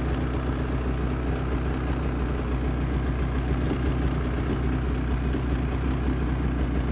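Snowmobile engine idling steadily, a low even hum with no revving.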